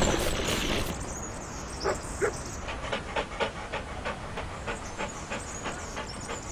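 A dog panting in quick, regular breaths, about four a second, used as the sound of a cartoon dog. A louder rushing hiss comes first, and two short, sharper sounds come a little after two seconds in.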